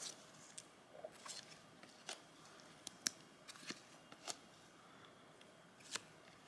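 Faint, scattered clicks and light rustles of trading cards being handled and flipped through, about a dozen short ticks over a few seconds.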